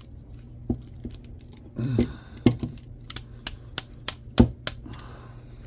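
Hand tools, a screwdriver and cutters, clicking and knocking against an electric motor's copper windings as they are pried out: irregular sharp metallic taps that come faster in the second half, the loudest about four seconds in, over a steady low hum.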